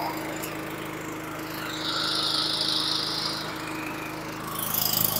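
Honda GCV160 single-cylinder overhead-cam mower engine running at a steady speed, with a brief high hiss about two seconds in and the engine getting louder near the end. It runs after its fuel tank was cleaned of contaminated fuel, not quite right: the owner notes a slight fluctuation in the RPM.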